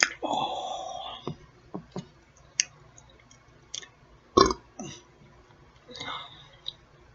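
A woman burping, one long burp lasting about a second near the start and a shorter one around six seconds in, gas from drinking Sprite soda with her meal. Between them come short mouth clicks and smacks and, midway, one sharp loud sound.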